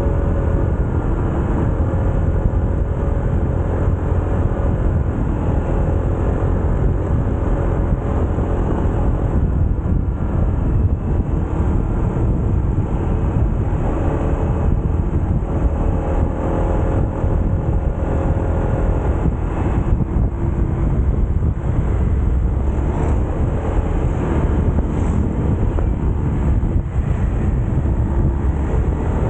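Small motorcycle engine running on the move, its pitch rising and falling gently with the throttle, under a steady low rumble of wind on the microphone.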